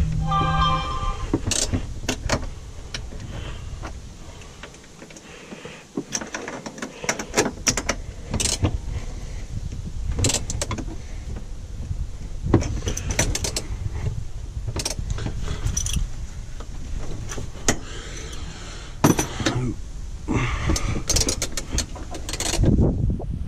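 Adjustable wrench clinking and knocking on a harness mounting bolt as it is tightened, with the harness's metal buckle hardware rattling and webbing rustling. A brief squeak comes right at the start.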